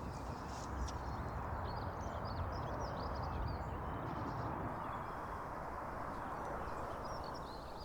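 Distant road traffic heard as a steady wash of noise that swells a little midway, with small birds chirping faintly above it.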